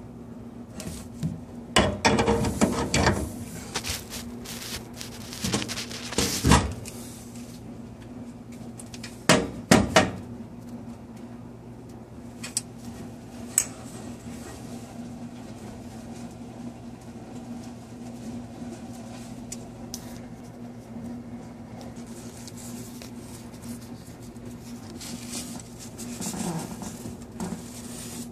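Scattered knocks and clatters, with a few loud clusters in the first ten seconds, over a steady low hum. Near the end there is a softer rustle as a paper towel wipes the soapy gas valve fitting.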